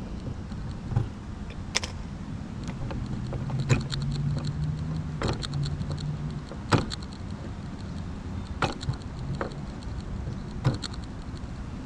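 Handheld electric starter whirring for a few seconds as it spins a model airplane engine that does not catch. Sharp clicks and knocks of handling come before and after.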